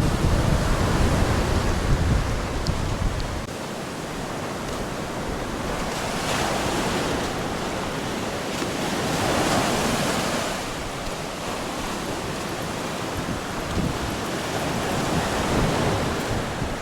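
Ocean surf washing onto a beach, swelling and fading in several waves, with wind buffeting the microphone for the first few seconds.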